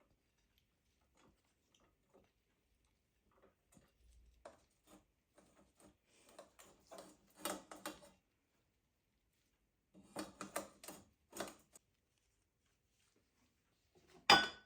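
Small clicks, taps and light clatter of objects being handled, in scattered clusters, with one sharp, loud knock near the end.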